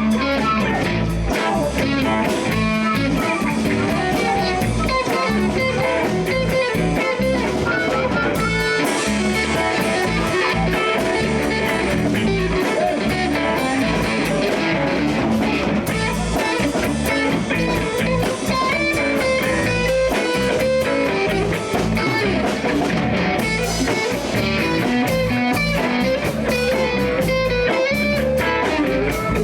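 Live blues band playing an instrumental passage: electric guitar to the fore over bass and drum kit.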